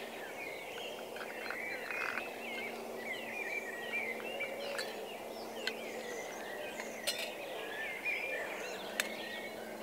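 Small woodland birds chirping and singing, with a few light clinks and clicks of small objects being handled.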